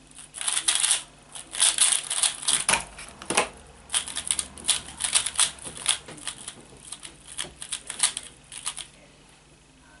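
Plastic 3x3 speed cube being turned fast during a speedsolve: dense runs of rapid clicking and clacking as the layers snap round. The clicks thin out to a few scattered turns and stop about nine seconds in.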